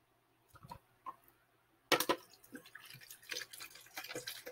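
Coconut rum poured from a bottle into a plastic cup, splashing and glugging, starting abruptly about two seconds in and running on. Before that come a couple of light knocks as the bottle is handled.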